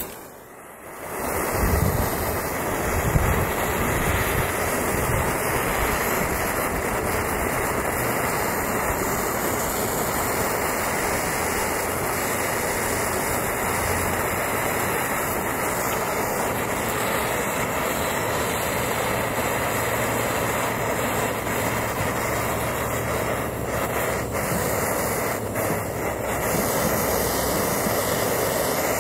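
Gas torch flame running: a steady, even rushing hiss that comes on about a second and a half in and holds.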